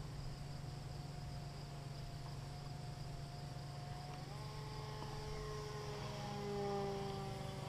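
Electric motor and propeller of an RC model Cessna 350 Corvalis whining in flight. The whine grows louder from about halfway through, peaks near the end and drops slightly in pitch as the plane passes. Crickets chirp steadily underneath.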